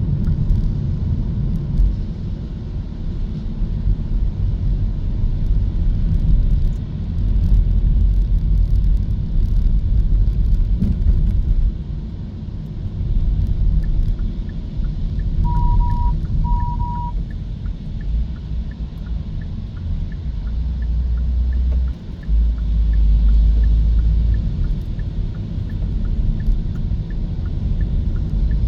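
Steady low road and tyre rumble of a Hyundai Kona EV driving, with no engine sound, rising and falling with the road. About halfway there are two short beeps, and faint regular ticking runs through the second half.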